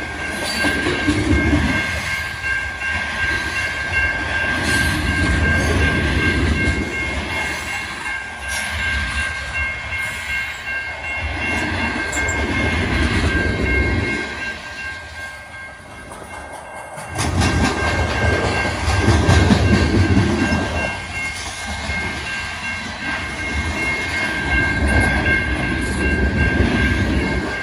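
Freight train of covered hopper cars rolling past: a heavy rumble and clatter of steel wheels on the rails that swells and eases in waves as the cars go by, dipping for a couple of seconds about halfway through. Over it a grade-crossing bell rings steadily.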